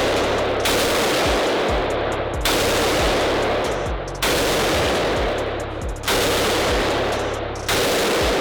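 Five gunshots fired at a slow, even pace, about one every two seconds, each followed by a long reverberating tail.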